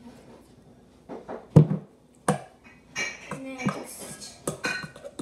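Knocks and clatter from handling things over a stainless steel mixing bowl, the loudest a sharp knock about a second and a half in, with a crinkly rustle near the end, alongside some background voices.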